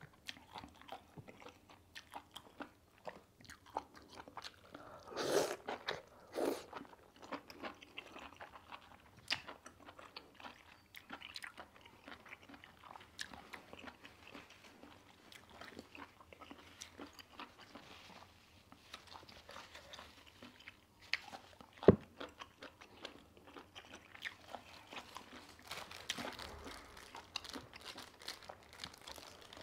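Close-miked eating sounds: a person chewing and crunching mouthfuls of spicy-sauced octopus and noodles, with many small wet mouth clicks. A louder cluster of bites comes about five and six seconds in, and a single sharp click, the loudest sound, a little past the middle.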